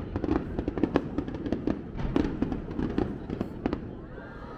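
Aerial fireworks crackling: a dense run of rapid, irregular sharp pops and cracks that thins out and fades near the end.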